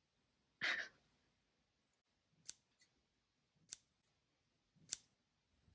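Hair scissors snipping: three short, crisp snips about a second apart, after a brief soft noise near the start.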